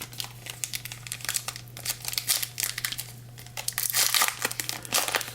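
Foil trading-card wrappers crinkling and tearing as card packs are ripped open by hand, in irregular crackles that grow busiest near the end, over a steady low hum.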